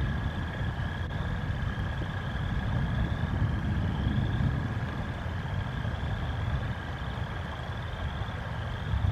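Steady low rumble of a thunderstorm on an outdoor nest-camera microphone, swelling and easing. Over it a short rising chirp repeats about every 0.7 s, with a steady high whine beneath.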